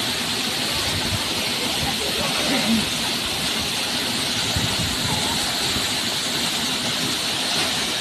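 Tall waterfall pouring into a rock pool, a steady, unbroken rushing of falling water.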